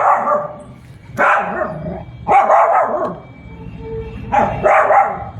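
A dog barking repeatedly, loud separate barks roughly a second apart.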